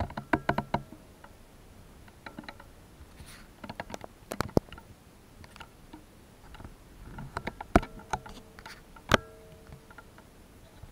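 Scattered sharp clicks and knocks from plastic reptile feeding tongs being handled around a glass vivarium. The two loudest knocks come late and each rings briefly.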